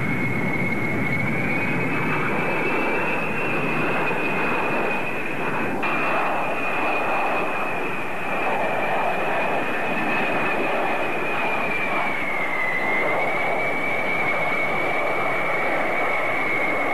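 A B-52 bomber's jet engines passing low overhead: a steady rushing engine noise with a high turbine whine on top that wavers slowly in pitch and dips briefly about twelve seconds in.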